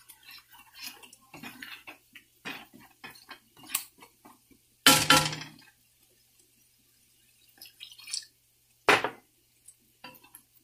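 Wooden spatula stirring and scraping thick masala paste in a nonstick frying pan, in many short strokes. About five seconds in comes a loud ringing clink, and near nine seconds a sharp knock, as a little water is added to the paste.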